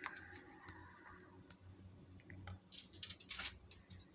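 Faint clicking and rustling of hands handling food and things on a plate, with a short, louder scraping rustle about three seconds in.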